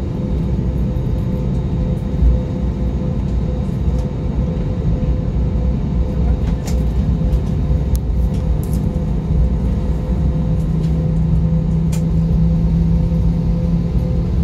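Airbus A320 cabin noise while taxiing: a steady low rumble from the engines and rolling wheels with several steady hums, a deeper hum joining about ten seconds in, and a few faint clicks.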